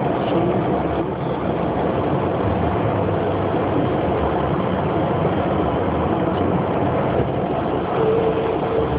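Steady traffic noise of vehicles driving on a city road, engines and tyres, heard while moving close alongside trucks. Near the end a thin steady tone sounds over it for about a second and a half.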